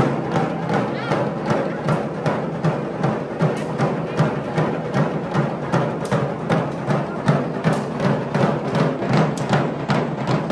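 Music driven by drums beating a fast, steady rhythm, several strokes a second.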